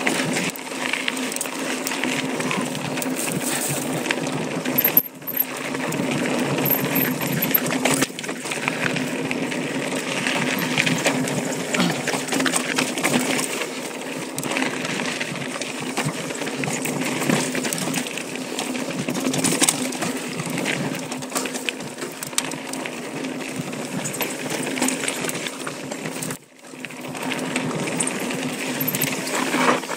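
Intense ACV mountain bike riding fast over dry dirt singletrack: tyres crunching on loose dirt and a steady rapid clatter from the chain and frame over the bumps.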